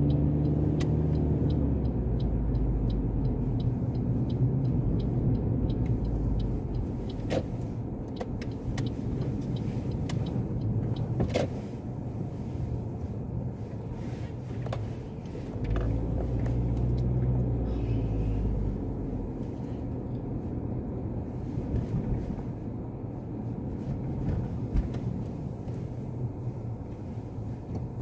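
Car engine and road noise heard from inside the cabin while driving. The engine's pitch rises as the car picks up speed near the start and again about halfway through, with a few light clicks scattered through it.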